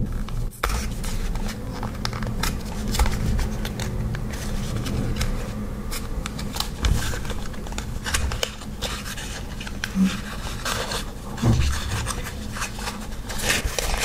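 Small cardboard box being handled and opened by hand: fingers scratching and rubbing on the card and working the end flap, with many small clicks and taps.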